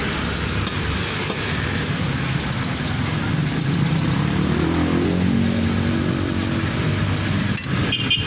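A motor vehicle's engine running close by over steady street traffic noise, its pitch rising and then falling in the middle. A few sharp knocks near the end.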